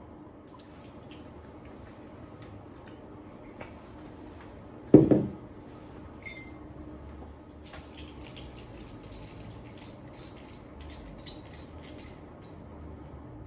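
Bourbon pouring over ice in a rocks glass. About five seconds in, a loud thump as the bottle is set down on the wooden bar, followed by a ringing glass clink. Then a bar spoon stirs the ice cubes with rapid light clinks for several seconds.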